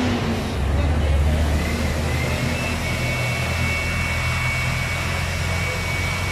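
A motor running steadily with a low hum, joined about two seconds in by a thin, high, steady whine.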